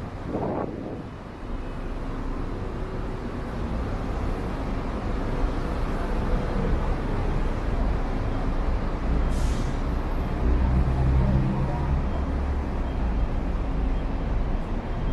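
City street traffic: a steady low rumble of vehicles, with a heavy vehicle's engine running nearby and growing stronger in the middle. A short, sharp hiss comes about nine and a half seconds in.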